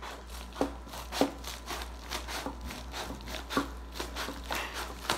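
A shipping package being handled and shifted: irregular rustling and crinkling of the packaging with a few knocks, the sharpest about a second in.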